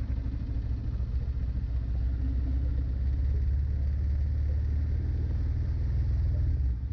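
Honda Winner V1 motorcycle riding slowly at low revs, a steady low engine and road rumble.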